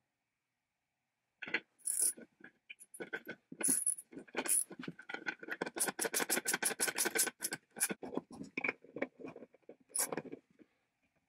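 Socket ratchet tightening a nut on a bolt through a wooden frame: a few metallic clinks as the chrome socket is fitted, then a fast, even run of ratchet clicks through the middle, with a few more clicks near the end.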